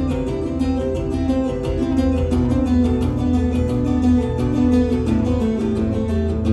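Solo steel-string acoustic guitar played live and amplified, in a steady run of fingerstyle notes over a repeating bass line, with two-handed tapping on the fretboard.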